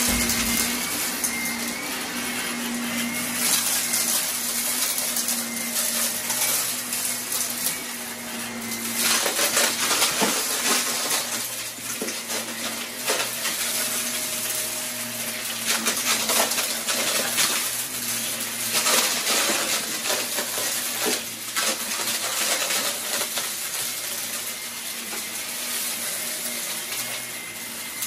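Bagless upright vacuum cleaner running steadily on carpet, its motor holding a constant whine, with a dense crackle and rattle of small debris being sucked up through the brush head into the dust cup. The rattling comes in heavier bursts several times as the head passes over thicker patches of debris.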